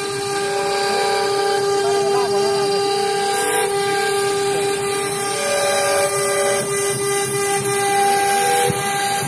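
CNC router spindle whining at one steady high pitch while its bit cuts square pockets into a board, over a steady hiss of cutting. A few brief higher tones come and go as the head moves.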